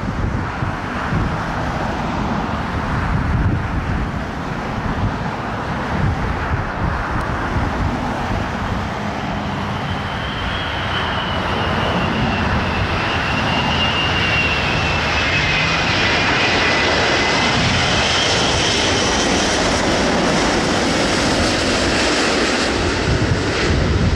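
Airbus A380 on final approach, its four jet engines making a steady rumble that grows a little louder about halfway through. From about ten seconds in, several high whining tones slide slowly down in pitch.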